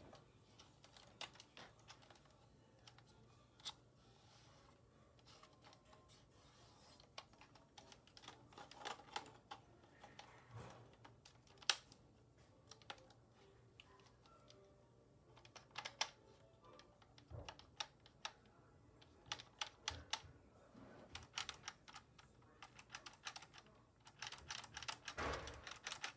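Plastic clicking and rattling of a brick-built LEGO AUG gun model being handled and its mechanism worked: irregular light clicks, one sharper click about halfway through and a dense run of clicks near the end.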